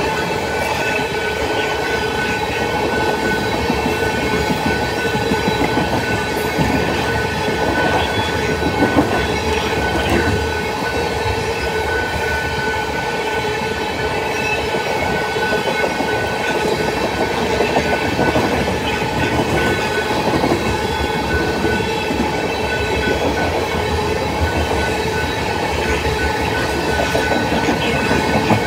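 Freight train of tank cars rolling steadily through a grade crossing, its steel wheels rumbling and clicking over the rails without a break.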